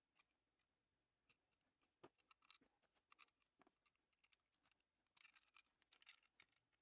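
Faint, scattered clicks and light scrapes of needle-nose pliers and steel axles against a metal toy truck's chassis as the axles are refitted, with a closer run of clicks near the end.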